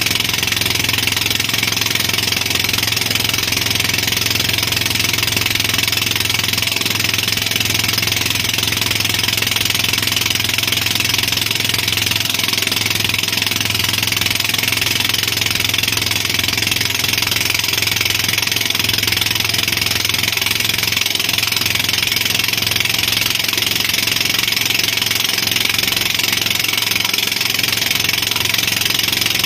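Motorboat engine running steadily under load while towing a banana boat, with a constant rush of wake and wind.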